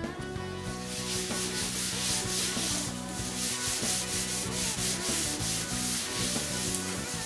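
Grey Scotch-Brite abrasive pad with matting paste rubbed back and forth by hand over a primed car fender: a hissing scrub in repeated strokes that starts about a second in. This is the primer being scuffed matte before painting.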